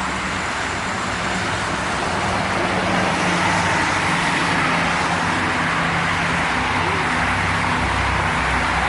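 Steady road-traffic noise of vehicles passing on a busy road: a haze of tyre and engine sound with a low engine hum, a little louder from about three seconds in.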